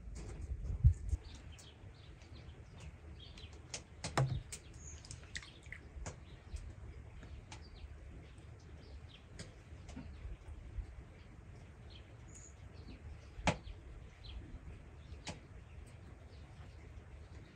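Faint bird chirps over scattered small clicks and soft knocks, with a low thump about a second in and a couple of sharper knocks later.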